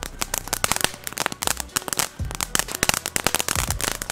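Four-elements ground fountain spraying sparks with its crackling effect: a dense, fast, irregular stream of crackling pops.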